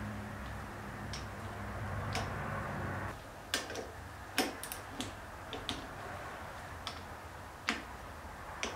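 Sharp, irregular clicks of a torque wrench ratcheting and clicking off as the wheel hub bolts are tightened to an even torque. A steady low hum underneath stops about three seconds in.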